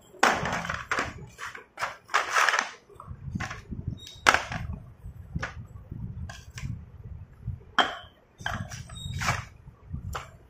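Small terracotta clay cups and pieces of chalk being handled in a plastic tub: a series of sharp clinks and knocks, some with a short ring, over low scraping and rubbing.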